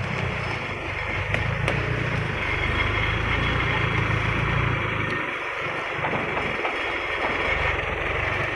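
Engine of a rice-hauling vehicle running steadily with a low, even rumble. It eases for about a second some five seconds in, then picks up again.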